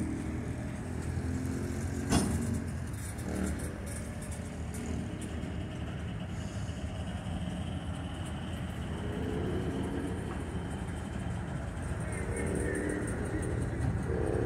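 Freight train of loaded coal gondolas rolling past close by: a steady low rumble, with one sharp clank about two seconds in.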